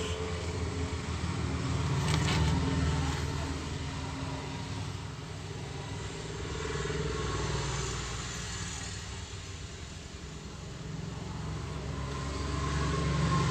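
Low rumble of passing road vehicles, swelling and fading a few times.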